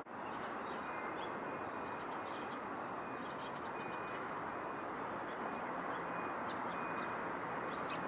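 Steady background din of distant traffic, with faint, short, high bird chirps scattered through it.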